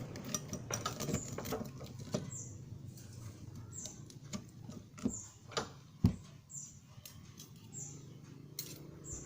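A child eating fried catfish: soft chewing and mouth sounds with scattered small clicks and taps, and a few sharper clicks about five to six seconds in.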